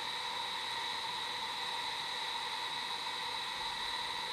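Steady machine hiss with faint steady high tones, unchanging throughout.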